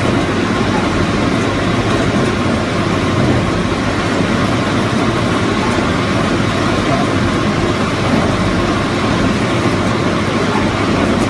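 Truck engine powering a tub grinder, running with a steady, loud mechanical drone and low rumble.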